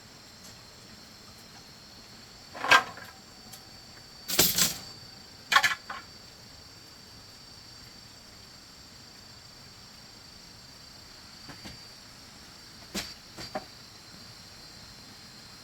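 A few sharp knocks and cracks of bamboo being struck or handled, the loudest bunched in the first six seconds and two fainter ones later, over a steady high drone of insects.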